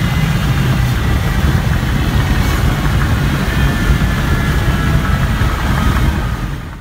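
Inside the cabin of a turbocharged 4G63 Mitsubishi Lancer Evolution VIII cruising on the highway: a steady low drone of engine, tyre and wind noise. It cuts off abruptly at the very end.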